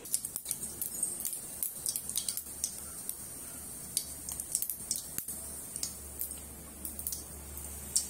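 Spice seeds crackling and spitting in hot oil in a wok: irregular sharp pops, several a second, the sign that the oil is hot enough to temper the spices.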